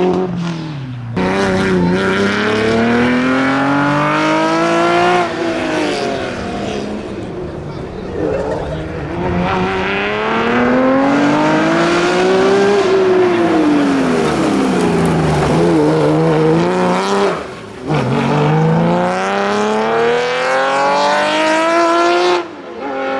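Classic rally car engines at full throttle. The pitch climbs through the gears, dropping sharply at each shift, and sinks back once as a car slows before the next climb.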